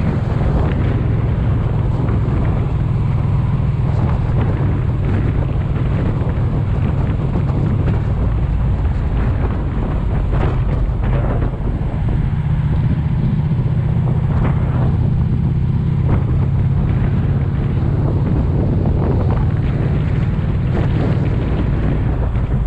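Motorcycle engine running at a steady road speed, a continuous low drone, with wind rushing over the microphone.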